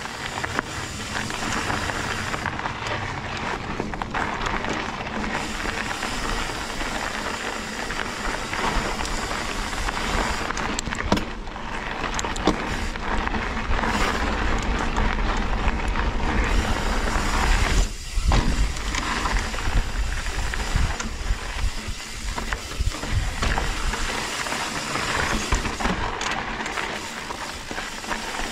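Mountain bike being ridden over a rough, rocky trail: steady tyre and rolling noise, with scattered knocks and rattles from the bike.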